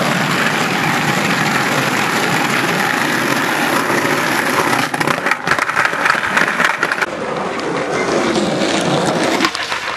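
Skateboard wheels rolling on a tarmac street, a steady rumble, with a run of clattering knocks from the board between about five and seven seconds in.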